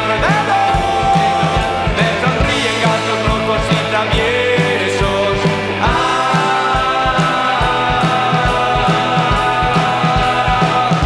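Rock song with a steady drum beat, bass and singing; the low bass thins out about six seconds in.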